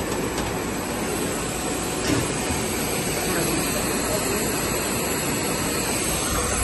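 Steady rushing hum of a running PE double-wall corrugated pipe extrusion line: extruder, corrugator and air and vacuum equipment working together, with one brief knock about two seconds in.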